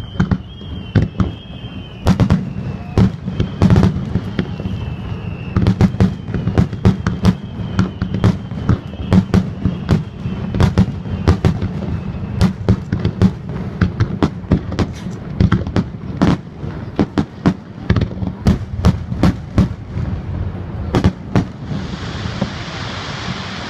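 Fireworks display: a dense, irregular series of shell bursts, many close together, over a continuous low rumble. A faint falling whistle runs through the first five seconds, and near the end the bursts give way to a steady hiss.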